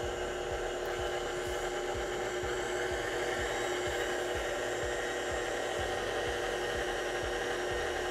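KitchenAid tilt-head stand mixer running on low speed, whisking a thin mix of water and meringue powder. It gives a steady motor hum with a soft low beat about twice a second.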